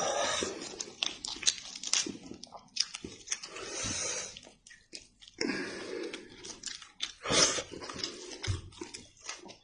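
Close-up eating of sheep's head meat: wet chewing and biting with many sharp smacking clicks and several longer slurps, the loudest about seven and a half seconds in.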